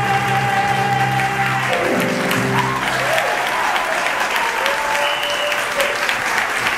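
A male singer and his accompaniment hold the final note of a Broadway show tune, which ends about two seconds in. The audience breaks into applause and cheering.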